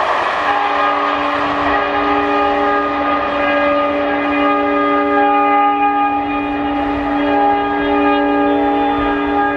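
Background music of long held chords, with notes that shift a few times, laid over the fading rumble of the passing train's last coach in the first second.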